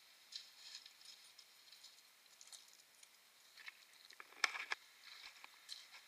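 Faint footsteps crunching on loose river gravel, with a louder cluster of clicks and knocks about four and a half seconds in.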